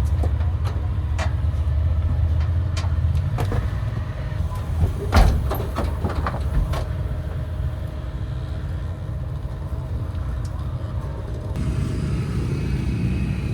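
Low rumble of a motor vehicle running, with scattered knocks and a loud thump about five seconds in.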